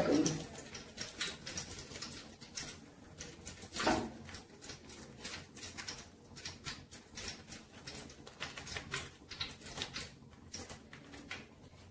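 Crinkling and rustling of a butter wrapper as fingers squeeze and peel it to push the butter out, with many small irregular clicks and one louder knock about four seconds in.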